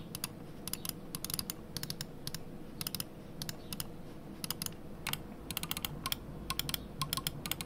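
Gaming-mouse buttons clicking repeatedly at an irregular pace, each a short press-and-release double tick: first a Logitech G Pro Wireless, then a Logitech G305 in the last couple of seconds, the G305 having the louder click.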